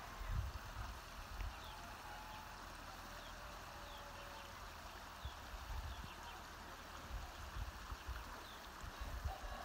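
Steady rush of running water, with wind buffeting the microphone in low thumps now and then and a few faint bird chirps.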